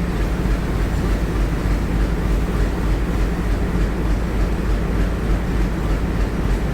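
Indian Railways train running steadily, a continuous low rumble that holds even throughout.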